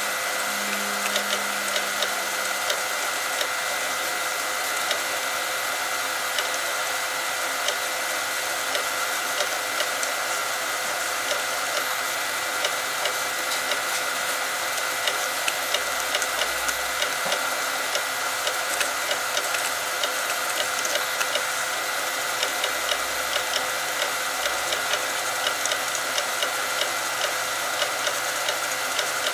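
Graphtec CE5000-60 vinyl cutter contour cutting a transfer sheet: a steady whine from its carriage and feed-roller motors, with frequent small clicks as the head and sheet move.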